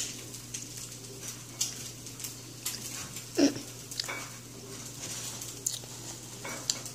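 Small eating noises at a table: chewing, scattered light clicks and ticks, and a paper napkin rustling near the end. About three and a half seconds in comes one short falling vocal sound, over a steady low hum.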